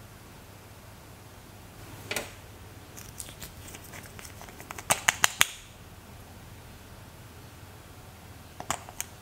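Small glass nail polish bottles and their plastic caps clicking and tapping as they are handled, opened and closed. There is one click about two seconds in, a quick run of sharp clicks between about three and five and a half seconds in, and a few more near the end.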